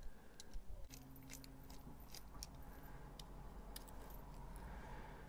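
Faint small clicks of a screwdriver bit working the small pocket-clip screws out of a folding knife's handle, with the metal clip coming away near the end. A faint steady low hum runs underneath from about a second in.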